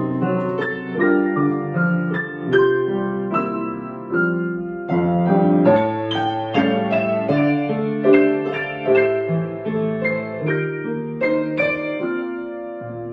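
Grand piano played four hands as a duet: a flowing run of notes and chords over a sustained bass, easing off slightly near the end.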